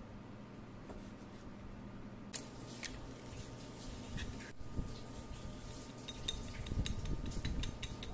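Chopsticks beating a raw egg in a porcelain bowl, heard as a quick run of light clicks against the bowl over the last two seconds or so. A few separate sharp clicks and knocks on the dishware come earlier, about two to five seconds in.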